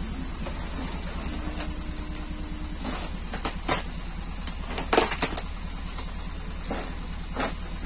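Cardboard boxes being opened and shifted by hand in a truck's cargo bed, with a few sharp rustles and knocks of cardboard about halfway through and again near the end, over a steady low rumble.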